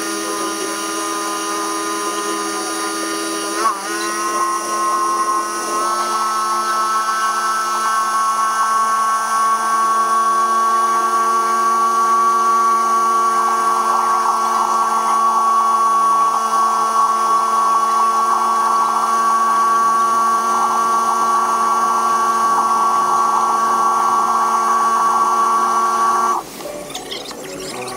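A small motor whining steadily at a fixed pitch. It steps up slightly in pitch about six seconds in, and cuts off suddenly near the end.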